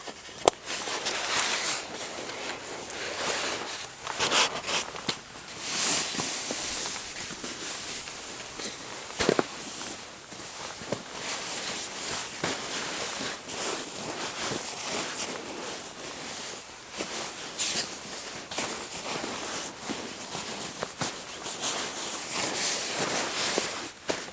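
A wood campfire crackling and popping: a steady hiss broken by many sharp snaps at uneven intervals.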